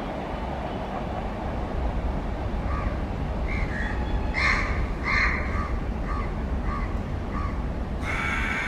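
A crow cawing repeatedly, its loudest calls a little past the middle, over the steady low rumble of a receding container freight train on the rails. A brighter hiss comes in near the end.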